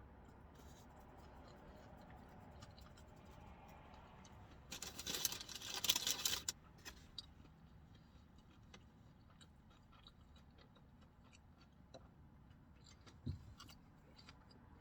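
Small clicks and mouth sounds of someone eating a burger, over a low steady hum, with a burst of rustling lasting under two seconds about five seconds in and a soft thump near the end.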